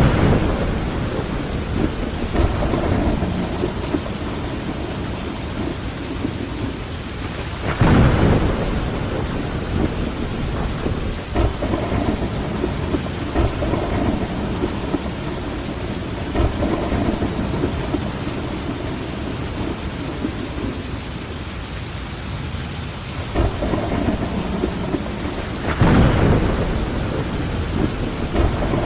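Steady rain on a window glass with thunder rumbling in a storm; louder rolls of thunder come at the start, about eight seconds in and near the end.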